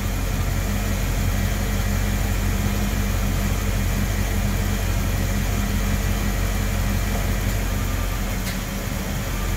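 A 1987 Ford F-150 engine idling steadily at operating temperature. Near the end there is a faint click and the low engine note weakens a little as the idle air controller is unplugged, dropping the engine to a very low idle that it should hold without stalling.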